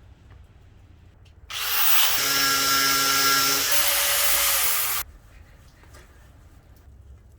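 Electric drill motor running in one burst of about three and a half seconds, starting and stopping abruptly, its pitch shifting about two seconds into the run.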